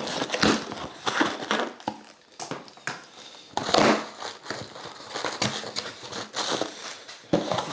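An Amazon package being opened by hand: packaging crinkling, crumpling and tearing in irregular rustles.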